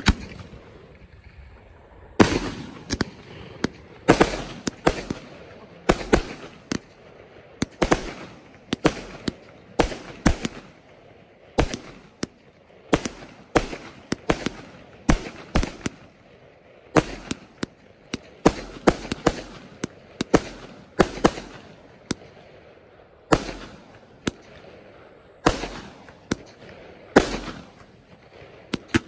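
Fireworks display: bursts going off in quick, irregular succession, from one to several sharp bangs a second with a few short lulls, each bang trailing off in a brief echo.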